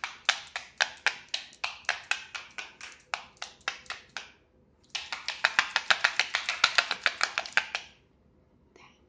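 Homemade rattle drum twirled back and forth, its beaters striking the drumheads in a steady train of sharp clicks, about four or five a second. The clicks stop about four seconds in and resume half a second later, faster and denser, before stopping near the end.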